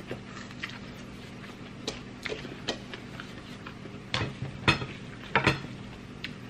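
Close-miked eating sounds: small scattered clicks of chewing, then several louder sharp clicks and short rustles about four to five and a half seconds in as a gloved hand picks up food from the dishes.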